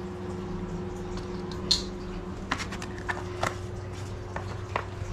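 A few light, sharp clicks and taps of small metal jig heads and hooks being handled on a hanging rack. The sharpest comes just before two seconds in, and the rest are scattered over the next few seconds. A steady low machine hum runs underneath.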